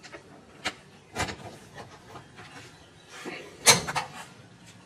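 Cabin door of a 1956 Piper Tri-Pacer being unlatched and opened. The push-button latch clicks a couple of times in the first second or so, then the door clatters loudly as it swings open about three and a half seconds in.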